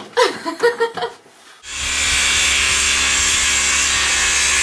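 A few short knocks, then about a second and a half in a power saw starts suddenly and runs steadily, cutting a wooden board.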